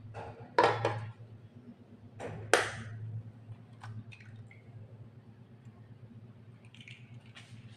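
Egg being cracked against a stainless-steel food chopper bowl and dropped onto raw minced fish, with the bowl's plastic lid handled: a few sharp knocks, the loudest about two and a half seconds in, then small faint taps, over a steady low hum.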